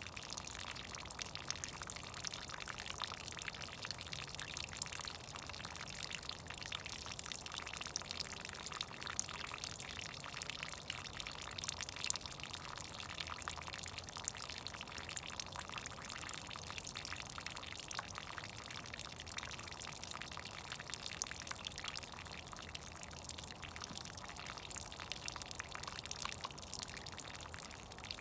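Meltwater from melting snow dripping and trickling: a steady, dense patter of small drips over a continuous running-water hiss.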